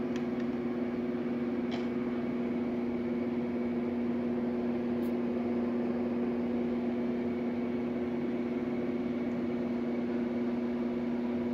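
A steady mechanical hum with a couple of pitched tones, unchanging throughout, and a few faint clicks early on and about five seconds in.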